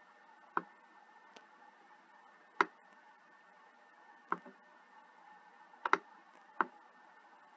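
Computer mouse button clicking as word cards are picked up and dropped on a drag-and-drop slide: about six sharp separate clicks a second or so apart, two of them in quick succession near the end, over a faint steady hum.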